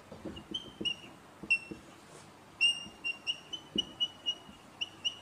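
Whiteboard marker squeaking as words are written: a string of short, high-pitched squeaks, a few drawn out briefly, with faint taps of the tip on the board.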